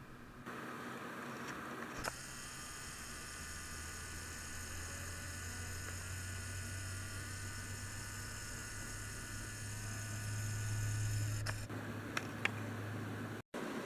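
Steady electrical hum and buzz over a low drone, changing abruptly a few times, with a few sharp clicks near the end.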